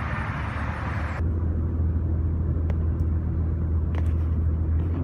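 A car driving at highway speed, heard from inside the cabin: a steady low drone of engine and road noise, with a few faint single clicks. For about the first second, before it starts, there is an open outdoor hiss.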